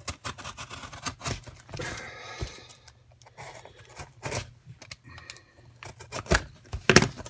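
Cardboard parcel being opened with a utility knife: the blade scraping and slitting the tape, cardboard rustling, and several sharp knocks, the loudest near the end.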